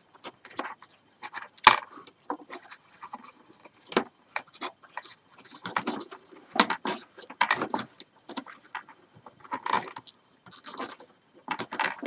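Rolled paper weaving tubes rustling, scraping and clicking against one another as they are bent upward and gathered by hand, in irregular short crackles with one sharp click a little under two seconds in.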